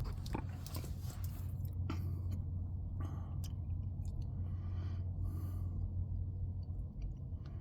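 Steady low hum of an idling truck engine, with scattered soft clicks and short rustles on top.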